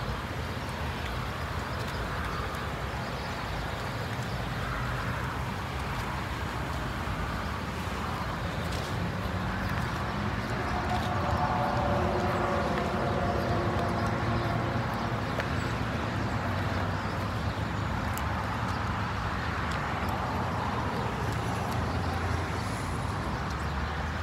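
Steady road traffic and vehicle engine noise, swelling a little around the middle as a vehicle passes.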